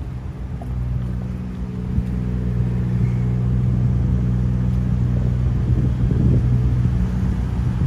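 Low, steady engine hum of road traffic, slowly growing louder.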